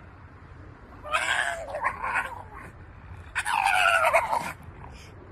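A dog howling: two drawn-out howls of about a second each, both sliding down in pitch, the second coming about two seconds after the first.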